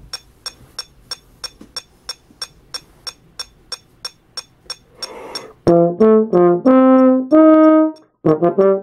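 A metronome clicking steadily about four times a second; about five seconds in comes a quick breath, then a silver marching brass horn plays a phrase of held and moving notes, ending in a run of short quick notes, with the clicks going on under it.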